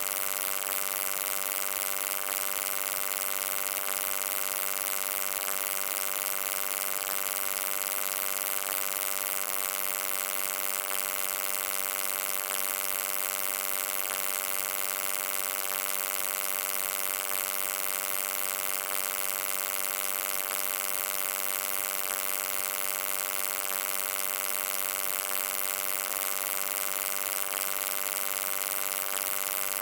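Steady electric hum: an unchanging buzzing drone with many evenly spaced overtones over a high hiss.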